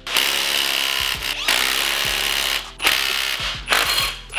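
Cordless power drill running in several short bursts as it drives bolts tight on a Porsche Cayenne front strut and control arm assembly.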